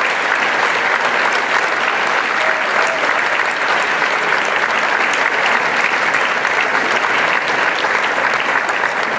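Audience clapping in a steady, dense round of applause.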